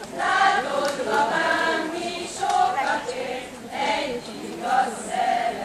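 A group of women singing a Hungarian folk song together, without instruments, in a simple melody of held notes.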